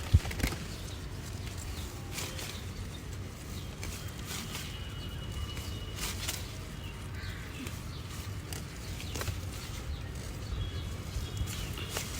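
Outdoor background noise with scattered light clicks and knocks, the loudest one just after the start, and a faint thin high tone held for about a second and a half near the middle.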